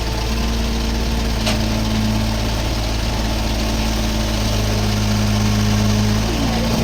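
Diesel engine of a Tata Hitachi Zaxis 33U mini excavator running steadily while it works. The engine note strengthens for a couple of seconds and then eases near the end. A short click comes about one and a half seconds in.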